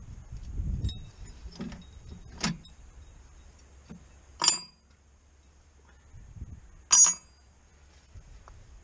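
Metal tractor hitch and linkage parts and tools being handled: low thumps and light knocks, with two sharp ringing metal clinks about four and a half and seven seconds in.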